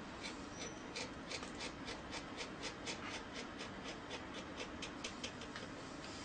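Pen nib scratching on paper in quick, short inking strokes, several a second, denser from about a second in and thinning out near the end.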